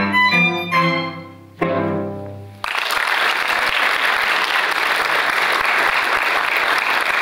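Violin and cello duo playing the last notes of a piece, ending on a final chord that fades away. Audience applause breaks out suddenly about two and a half seconds in and carries on.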